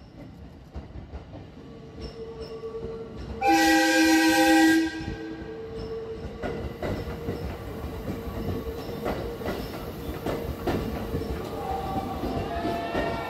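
A JR Central 315 series electric multiple unit sounds its horn once, loud, for about a second and a half a few seconds in. It then rolls past with wheels clicking over the rail joints. Near the end, the motor cars' whine rises and falls in pitch as they pass.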